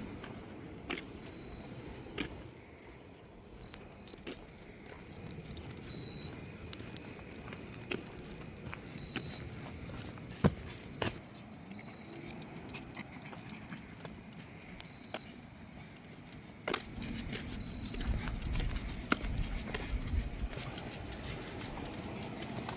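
Crickets chirping steadily in a high, even drone, with scattered sharp clicks and some low rustling noise over it.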